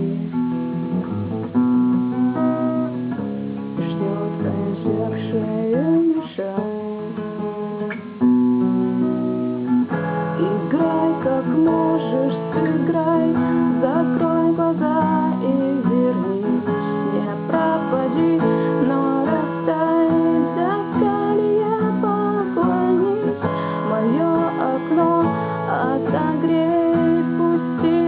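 Acoustic guitar strumming chords in an instrumental passage of a song, with a wavering melody line over it.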